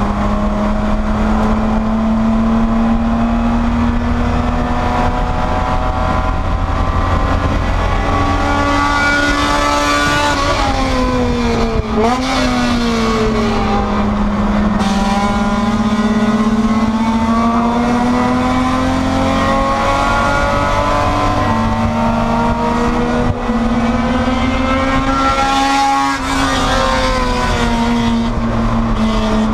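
Spec E30 BMW race car's engine running hard, its note rising and falling as the car accelerates, brakes and changes gear. There is a sharp drop and rebound in pitch about twelve seconds in and another drop near twenty-six seconds.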